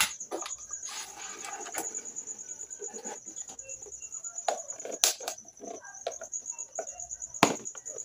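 Knocks and clatter of a plastic Arno table fan being handled and turned around on a workbench. The sharpest knocks come at the very start, about five seconds in and near the end, over a steady, finely pulsing high whine.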